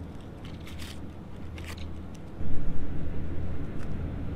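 A steady low droning hum that grows louder about two and a half seconds in, with a few soft rustles and clicks in the first two seconds.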